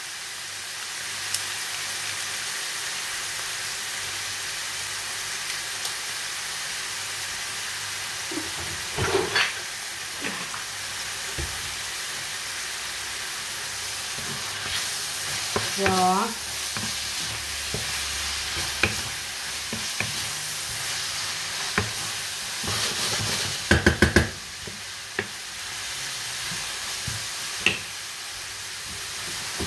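Beef and mushrooms sizzling steadily in a frying pan, with a few knocks of a utensil. About three-quarters of the way through comes a quick run of sharp taps.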